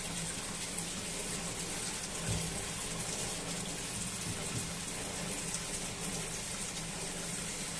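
Water-cooled stone-shaping machine running: a steady hiss of cooling water over a low, even motor hum.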